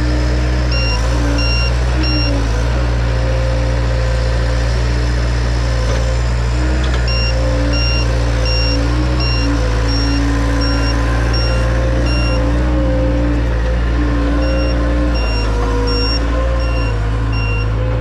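Gehl skid steer's engine running steadily under work while it backs and turns through mud, its reverse alarm beeping about twice a second in several spells.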